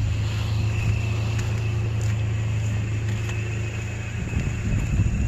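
Vehicle engine running steadily: a constant low hum with a faint steady high whine above it.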